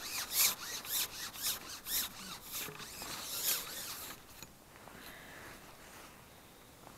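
Carbon fishing pole rubbing and rasping as it slides through the hands and over the rest while being shipped, in repeated strokes about two a second. The strokes stop about four seconds in, leaving only a faint background.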